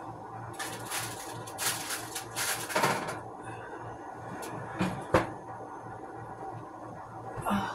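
Kitchen handling noises while a cooking chicken is checked: rustling and scraping for the first three seconds, then sharp clunks about five seconds in and another knock near the end, over a steady low hum.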